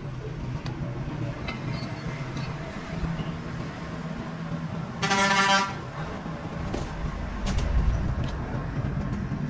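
Steady low machinery hum, with one short horn-like toot a little past halfway through.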